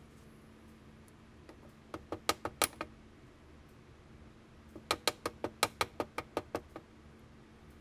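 Steel pliers tapping and clicking against a large flat spring steel spring and the rim of a molten-lead pot. Two quick runs of sharp metallic taps: a short one about two seconds in, then a longer, faster one of about ten taps later on.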